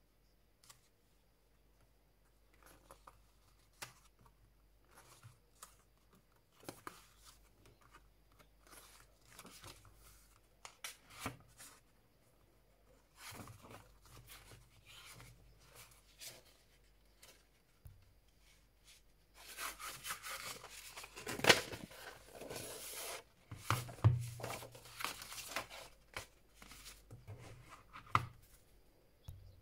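Pages of a K-pop album photobook being turned and handled: scattered paper rustles and soft clicks, growing into a louder stretch of rustling with one sharp snap about two-thirds of the way through, then quieter handling near the end.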